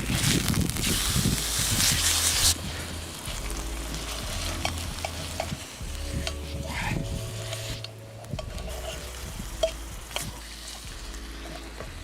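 Food frying and sizzling in a pan over a campfire, loud for the first couple of seconds and then quieter, with small clicks and scrapes of stirring.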